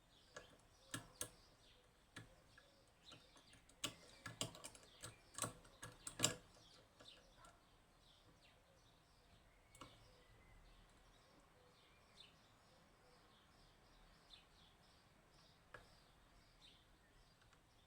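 Faint metallic clicks and taps from lock-picking tools working the levers of a Union G110 five-lever lock: a cluster of sharp clicks over the first six seconds or so, then only an occasional tick. Faint bird chirps sound in the background throughout.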